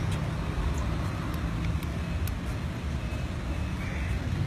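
Steady rumble of street traffic, with a few faint clicks.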